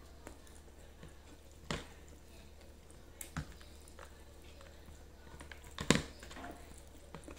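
Fingers picking at and tearing grilled chicken and rice in a plastic takeaway tray, with a few sharp knocks against the tray, the loudest about six seconds in, over a low steady hum.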